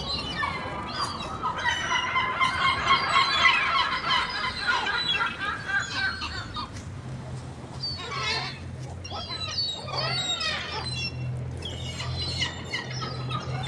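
Seagulls calling: a long run of rapid, repeated squawking cries in the first half, then several separate rising-and-falling calls.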